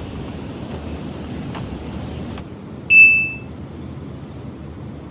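Low, steady outdoor rumble of wind and city noise; about three seconds in, a single short, loud electronic beep.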